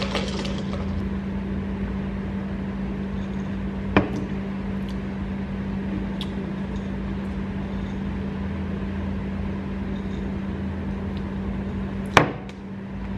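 Steady low electric hum in a small room, with two short sharp clicks, one about four seconds in and one near the end.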